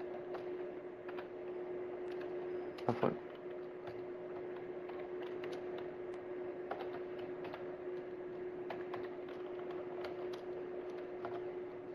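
Computer keyboard keys being typed in short, irregular clicks over a steady low hum, with one louder double knock about three seconds in.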